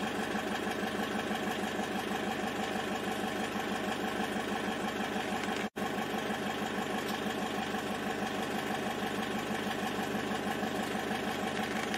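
A vehicle engine idling steadily with an even, dense hum. The sound drops out for an instant about six seconds in, then carries on unchanged.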